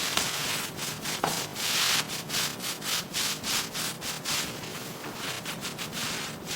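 Back-and-forth rubbing on a surface, such as sanding or scrubbing: quick, uneven hissing strokes, about three a second.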